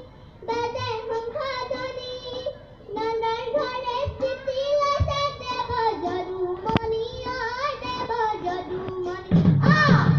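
A group of children singing together in unison, with long held notes and a few single drum strokes. Near the end, drums and other instruments come in loudly.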